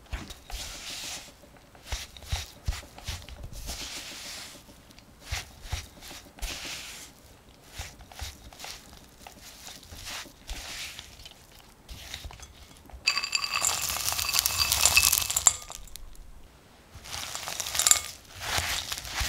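A spatula scraping and folding crumbly cookie dough in a glass bowl, with soft scrapes and taps against the glass. About 13 s in comes a loud, dense rattle of dry mix-ins (oatmeal, chopped walnuts, dark chocolate pieces) tumbling into the bowl and making the glass ring for a few seconds. Near the end, more rattling and scraping as the mix-ins are folded into the dough.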